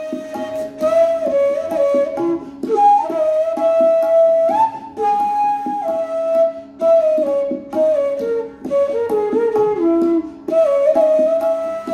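Bamboo bansuri (Indian transverse flute) playing a melody in raag Kaushik Dhwani, held notes stepping up and down with short glides between them and brief breaths between phrases, over a steady low drone.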